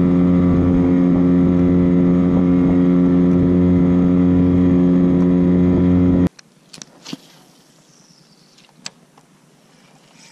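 A small boat motor running at one steady pitch, then cutting off abruptly about six seconds in. After that it is quiet, with a few sharp clicks and knocks.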